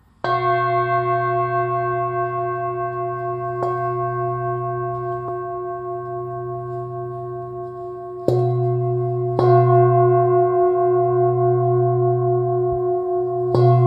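Hand-hammered Healingbowl Professional Gold Moon singing bowl, resting on an open palm, struck near the start, twice about two-thirds of the way through and again near the end. Each strike sets off a long, deep ring of several steady tones that pulse with a slow wobble as they fade.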